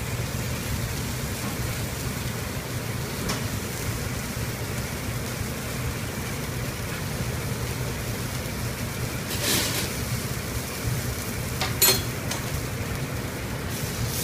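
Venison medallions sizzling in a pan over a steady low rumble, with two short clatters, the second louder, in the last few seconds.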